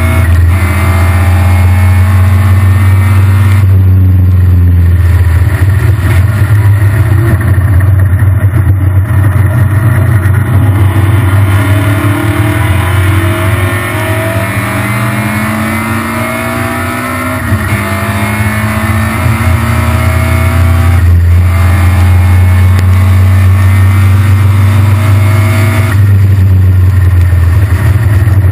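Triumph Spitfire race car's four-cylinder engine heard from inside the open cockpit, running hard at racing revs. The revs drop as the driver lifts and slows about four seconds in, then climb through the gears in the middle, with further drops at gear changes and braking later on.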